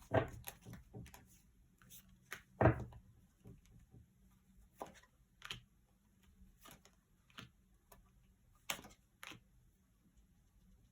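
Tarot cards being handled and laid on a table: scattered light taps and clicks, with one louder thump a little under three seconds in.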